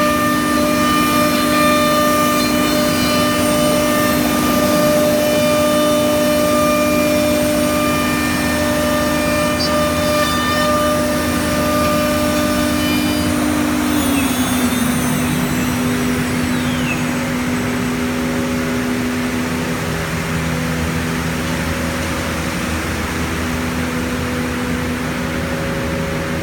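CNC router spindle running through 18 mm laminated MDF, a steady high whine over cutting noise. About halfway through the whine drops in pitch and the sound settles into a lower, duller hum.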